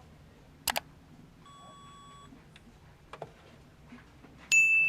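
A few light clicks and a short, faint beep, then near the end a sudden loud ringing ding that fades slowly.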